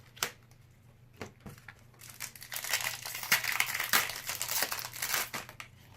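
A trading-card booster pack's wrapper crinkling as it is handled and opened. A few light clicks come first, then about two seconds in a dense stretch of crinkling that lasts some three seconds.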